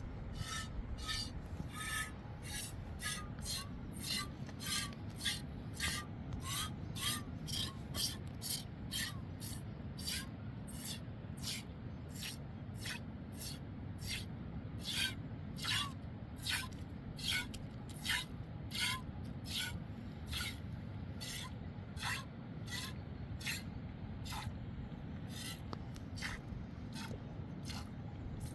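Wood being worked by hand with a cutting or abrading tool, in steady, regular back-and-forth strokes, about two a second.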